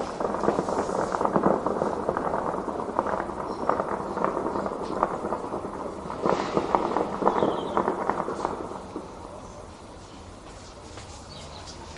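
Heavy distant gunfire: a dense crackle of rapid, overlapping shots that eases off after about eight seconds to a few scattered cracks.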